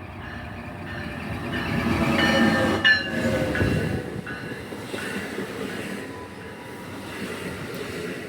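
NJ Transit train passing through the station, swelling to its loudest about two to three seconds in. A pitched sound with several tones drops in pitch as the train goes by, then settles into a steadier rumble of the train running on.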